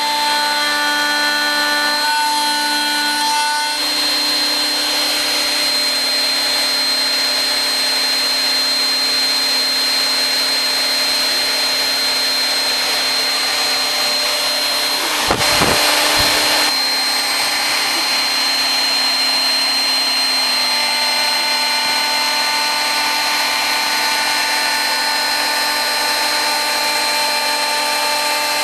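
Homemade CNC router milling a round pocket in wood. The router spindle runs with a steady high whine over a wash of cutting noise, while tones from the axis motors shift in pitch as the axes move in the first few seconds. About halfway through there is a louder noisy burst lasting about a second.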